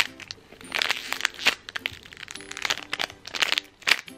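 Clear plastic packaging bag crinkling and crackling in quick irregular bursts as a small squishy toy is handled and squeezed inside it, with soft background music underneath.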